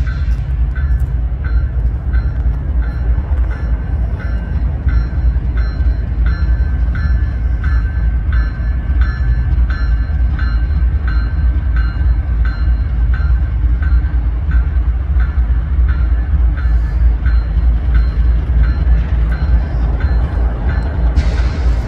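Diesel locomotives at the head of a Union Pacific freight train running with a steady low rumble as they move very slowly toward the listener.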